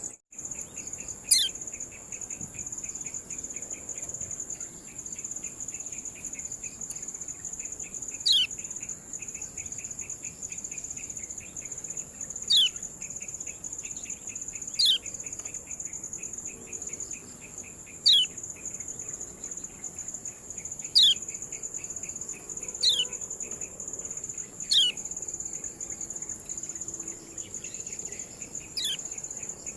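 Kecial kuning (a white-eye) giving single sharp 'ciak' chirps, each a quick falling note, nine times at irregular gaps of two to six seconds. Behind them a steady high-pitched cricket trill and a fast pulsing insect chirr.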